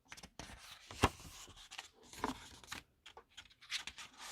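A K-pop album's packaging being opened by hand: rustling, sliding and clicking of card and plastic, with one sharp tap about a second in.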